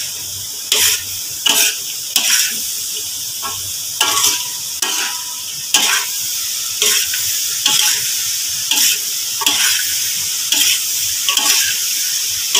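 Stir-fry of pea pods, shrimp and tempeh sizzling in a large metal wok, with a metal spatula scraping across the pan and turning the food in repeated strokes, a little more than one a second, over a steady frying hiss.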